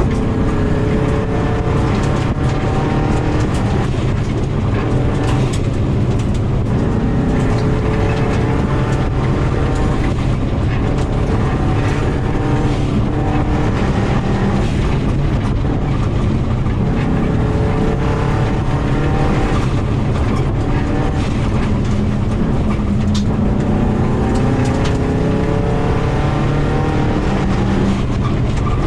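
2000 Subaru WRX's turbocharged flat-four engine driven hard, its revs rising and falling again and again through gear changes and corners. Gravel rattles and stones crack against the car, heard from inside the cabin.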